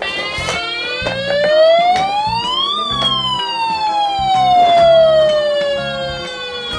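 Electronic siren wailing once: the pitch rises for about three seconds, then falls slowly back down, over background music.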